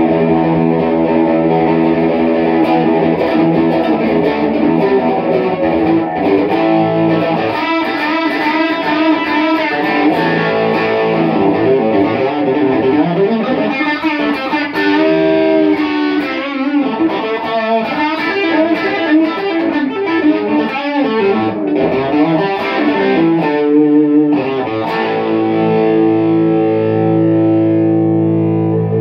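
Amplified electric guitar, a Keller Les Paul-style gold-top with P90 pickups played through a Hiwatt Custom 50 amp. It opens on ringing chords, moves to single-note lead lines with bent notes, and ends on a long held chord.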